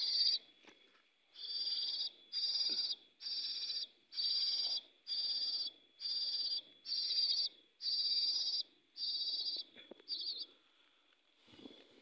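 Pitta nestlings begging from their nest: a regular series of about a dozen short, high-pitched calls, roughly one a second, stopping near the end. The begging is the sign that the chicks are hungry.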